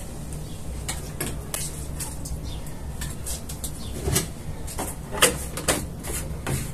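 Plastic detergent bottle and measuring cap being handled and set down at a top-loading washing machine: irregular light knocks and clatters, the sharpest about five seconds in, over a steady low hum.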